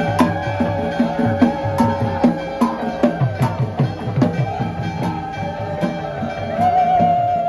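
Kerala temple festival music: drums beating a quick, steady rhythm with sharp strikes, under a sustained, wavering wind-instrument melody that grows stronger near the end.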